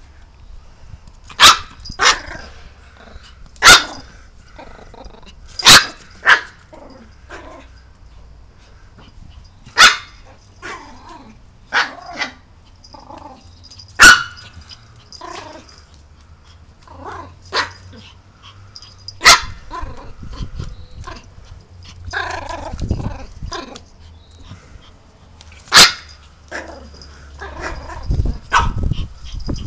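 Small terrier, a Yorkshire terrier, barking in short, sharp barks, singly or in quick pairs, about a dozen spread out with pauses of one to several seconds.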